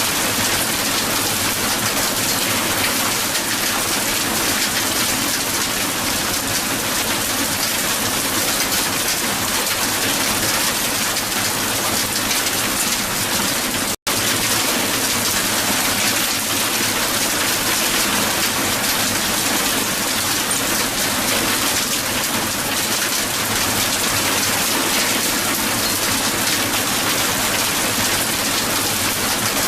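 Heavy hail falling steadily on the ground, a dense patter of ice pellets striking. It cuts out for an instant about fourteen seconds in.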